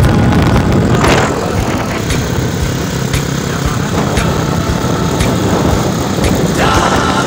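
Yamaha Scorpio-based cafe racer's single-cylinder four-stroke engine running steadily as the motorcycle is ridden, through its custom handmade exhaust.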